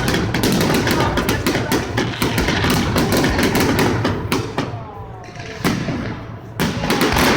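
Fireworks display: a dense run of bangs and crackling reports that eases off about four and a half seconds in, then a fresh burst of bangs near the end.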